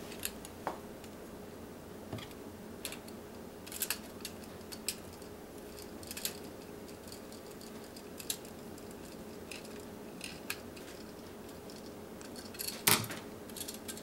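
Scattered small clicks and scrapes of a hand tool and a GFCI receptacle being handled while a copper ground wire is bent and hooked onto the device, with one louder clack near the end. A faint steady hum runs underneath.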